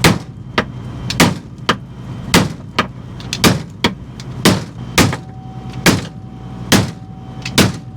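A hammer striking a metal plate on a harvester, about a dozen hard blows at roughly one a second, some in quick pairs, to knock back a lump that a rock pushed into the plate.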